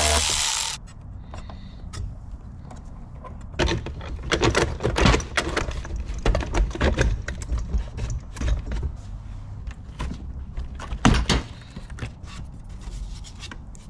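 A short burst of noise, then irregular knocks, clunks and rattles, like hand work on hard parts; the loudest knock comes a little after eleven seconds in.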